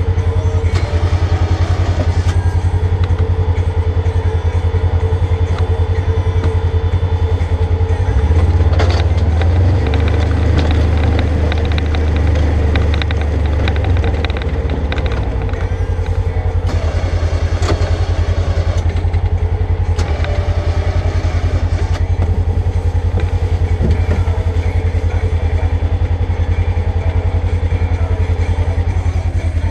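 2020 Polaris General XP side-by-side's engine running steadily while plowing snow. Its note shifts and rises for several seconds from about eight seconds in, with added noise on top, then settles back.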